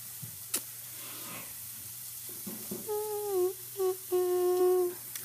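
A girl humming with her mouth closed: a short note that slides down, a brief note, then a longer held note, starting about three seconds in. A single click comes about half a second in.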